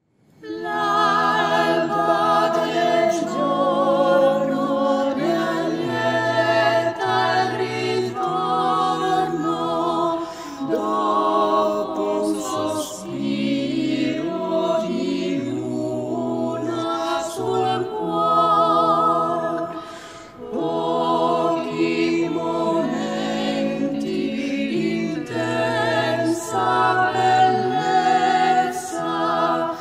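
Small mixed a cappella ensemble of five voices, women and men, singing in harmony with long held chords, entering together just after the start. The voices are separate home recordings mixed into one ensemble. A short breath pause between phrases comes about two-thirds of the way through.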